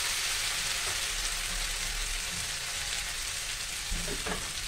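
Chopped onion and turmeric masala with a little water sizzling steadily in hot oil in an iron kadhai, with a couple of faint knocks near the end.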